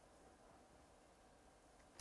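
Near silence: faint steady room hiss, with one soft click near the end as a trading card is slid off the stack.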